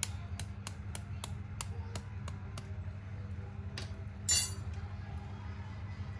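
A quail egg's shell tapped again and again on a hard edge to crack it: a quick run of about ten sharp taps, about four a second, then a louder brief crackle a little past the middle. A steady low hum runs underneath.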